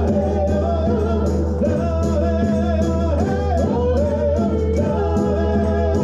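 A woman singing a gliding melody while beating a steady rhythm on a hand-held hide frame drum, with electric guitar and a steady low drone underneath.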